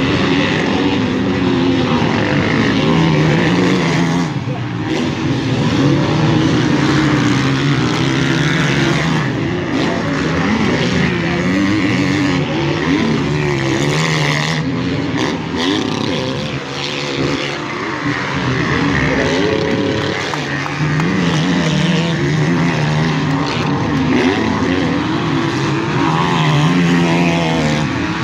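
Motocross bikes' engines revving as they race around the track, several at once, rising and falling in pitch as the riders work the throttle.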